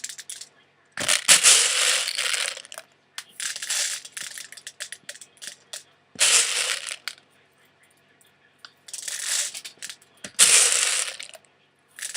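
Plastic 6 mm airsoft BBs rattling into and around a plastic medicine bottle as it is loaded, in about half a dozen short bursts of clatter with pauses between.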